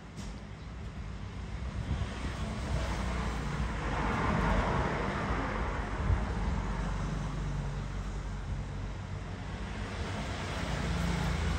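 Motor vehicle noise, building up and strongest about four to five seconds in, then easing off a little.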